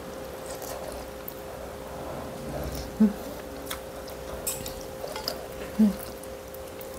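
Eating noodle soup from a stainless steel bowl with chopsticks: a few light clicks of the chopsticks against the bowl, and two short hums of the voice, about three seconds apart. A steady hum runs underneath.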